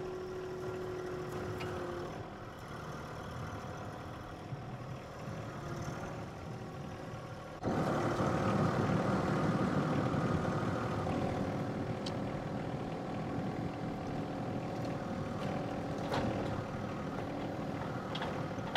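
John Deere 1-series sub-compact tractor's three-cylinder diesel engine running steadily while the front-loader grapple works a brush pile, with a steady whine that stops about two seconds in. About eight seconds in, the engine suddenly becomes louder and fuller.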